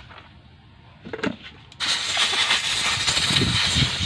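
A light click of handled parts, then about two seconds in a loud, steady hiss from a pressurised nozzle begins, as when a workshop blows or sprays down engine parts.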